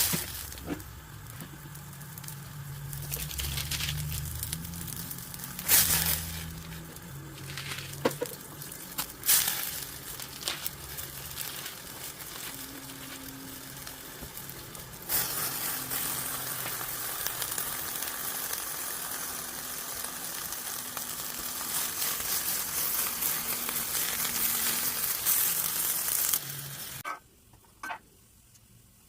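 Food sizzling as it fries in a pan, a steady hiss that gets louder about halfway through and stops abruptly shortly before the end. A few sharp knocks or clicks come in the first ten seconds.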